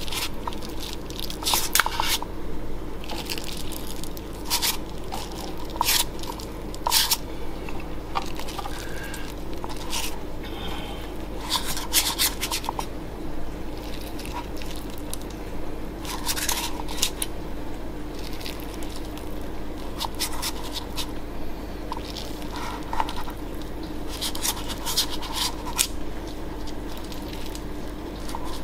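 Spoon pressing into and scraping a sticky melted-fudge and shredded wheat mixture in paper cupcake cases in a metal muffin tray: irregular squelchy scrapes and clicks, over a steady low hum.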